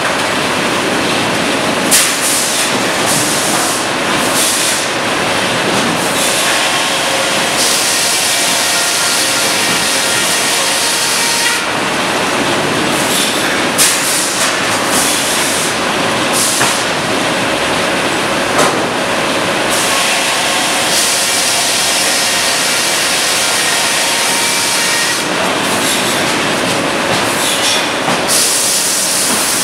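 Sawmill machinery running loud and steady: a Cleereman log carriage travelling on its rail track through the head saw. Sharp clanks stand out a few times, and a high hiss comes and goes in stretches.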